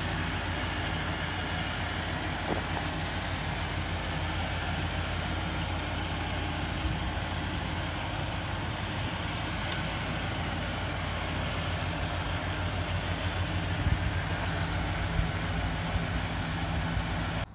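8.1-litre Vortec V8 gasoline engine of a Chevrolet Kodiak C4500 truck idling steadily with a low, even hum.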